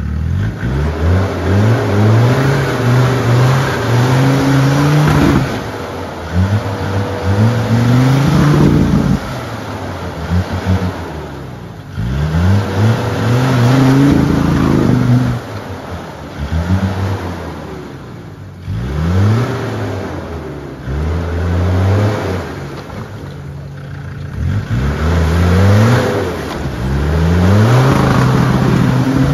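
Land Rover Defender's engine revving hard in repeated bursts, pitch climbing and dropping about six or seven times, as the 4x4 struggles to climb out of a deep muddy rut with its wheels spinning.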